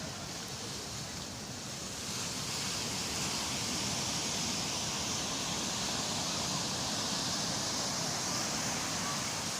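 Sea waves washing onto a beach: a steady hiss of surf that swells about two seconds in and then holds.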